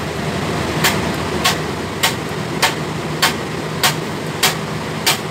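Blue Star air-cooled scroll chiller running with a steady hum, overlaid by eight short sharp clicks about 0.6 s apart as the controller's SELECT button is pressed again and again to step through the compressor readings.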